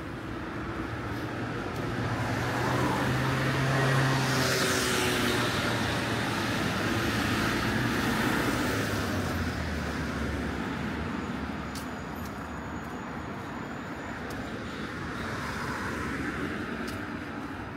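Road traffic: cars driving past on a city street, the loudest passing close about four seconds in with a tyre hiss, another around eight seconds and a quieter one near the end.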